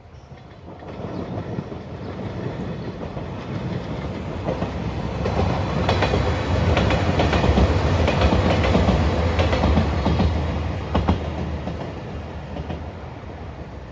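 A train passing at speed: its running sound swells to a peak about eight seconds in and then fades, with the clack of wheels over rail joints as it goes by.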